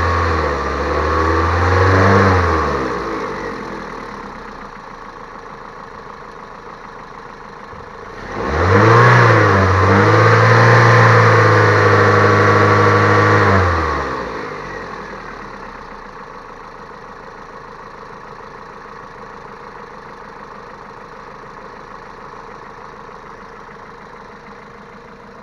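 Geely Emgrand EC7 1.8-litre four-cylinder petrol engine, the one the owner is showing for a knock: it falls from raised revs to idle about three seconds in, is revved up and held for about five seconds near the middle, then drops back to a steady idle.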